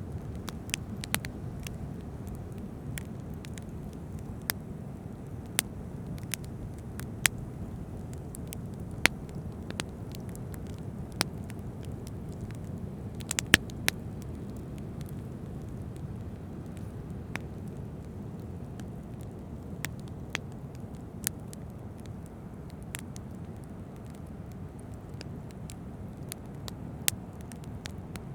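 A fire crackling with irregular sharp pops, the loudest a quick cluster about halfway through, over a steady low rush of ocean waves.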